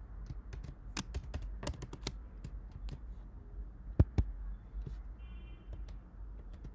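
Typing on a computer keyboard: irregular key clicks, a few in quick succession and then a pause, with two sharper strokes about four seconds in.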